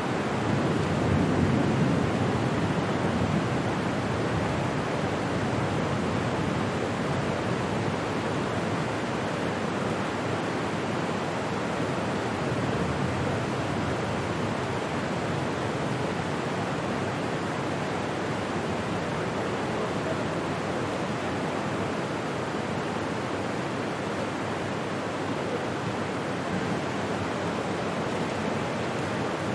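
A steady, even rushing noise with no distinct events, slightly louder in the first few seconds.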